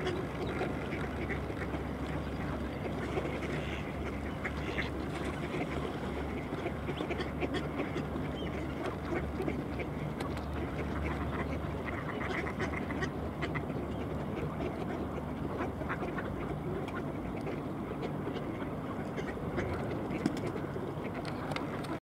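Mallard ducks quacking over a steady low rumble.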